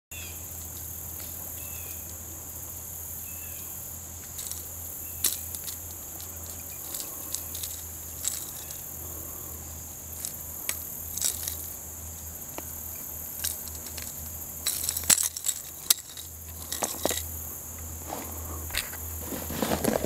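Scattered sharp clicks and clinks of needle-nose pliers against a crankbait's treble hooks being worked out of a spotted bass's mouth, over a steady high-pitched insect chorus. A denser run of knocks and gravel crunching comes near the end.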